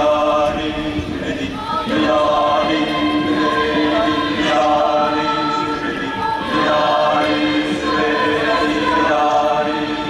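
High school choir singing in parts, holding chords that change every second or two.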